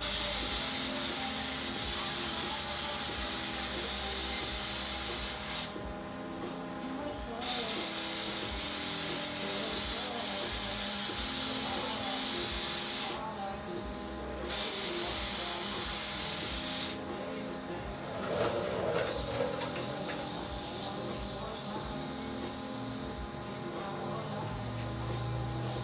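Air spray gun shooting bed liner onto a jet ski hull: three long bursts of loud hiss, about five, six and two and a half seconds long, with short pauses between them.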